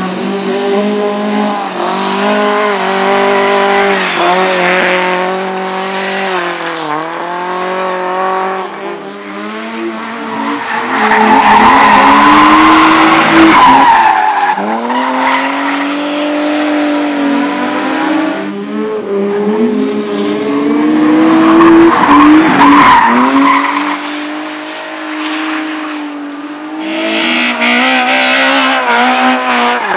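Racing car engines revving hard, the pitch rising and falling again and again with throttle and gear changes as the cars slide around a cinder track. The engine noise is loudest about a third of the way in and again a little past the middle.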